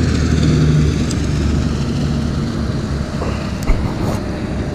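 A motor vehicle passing: a steady engine drone with road noise that fades after the first couple of seconds. Two small clicks come near the end.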